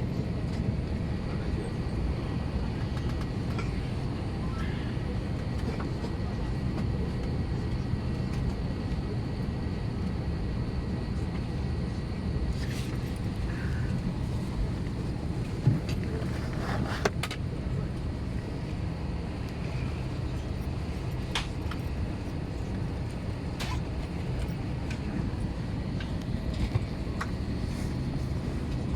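Steady low rumble of an airliner cabin, engine and air noise heard from inside the plane, with a few faint clicks and knocks.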